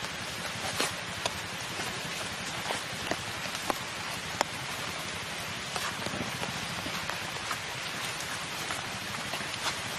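Steady outdoor hiss, like light rain, with scattered sharp ticks and clicks.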